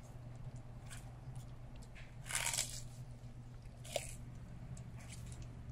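A tortoise biting into celery stalks: a few separate crisp crunches, the longest about two seconds in and a short sharp snap at about four seconds, over a low steady hum.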